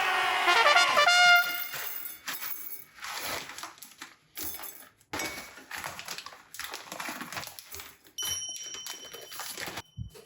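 A short brassy trumpet-like sound effect at the start, its notes stepping in pitch, followed by scattered knocks and clatter. About eight seconds in, a steady high beep-like tone holds for just over a second.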